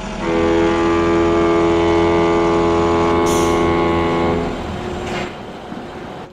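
A vehicle horn sounding in one long, steady blast of about four seconds over a running engine.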